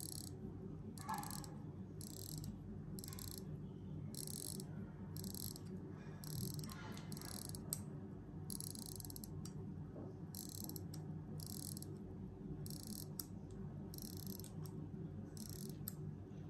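Crown of a manual-wind watch with an Allwyn A6300 movement being turned by hand to wind a stopped watch. The mainspring's winding ratchet makes short bursts of fine clicking, one burst per turn of the crown, about one to two a second, over a steady low hum.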